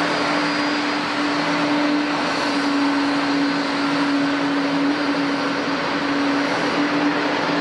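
Boeing 777-200 jet engines running steadily: an even rushing noise with a constant low hum, no rise or fall in pitch.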